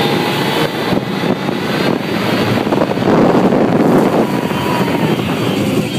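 California Screamin' steel roller coaster train launching and speeding along its track: loud wind buffeting the microphone over the rumble and rattle of the train.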